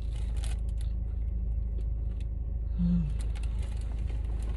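Car engine idling steadily, heard from inside the cabin, with a few faint clicks and a short low hum about midway.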